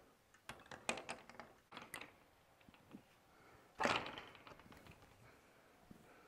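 Wood-framed hog wire fence panel knocking against its post as it is worked onto its hooks: a few light knocks in the first two seconds, then a louder clattering clunk about four seconds in.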